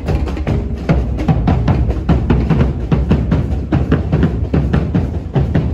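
Loud percussion-led music: a fast, dense drum beat with a heavy bass drum.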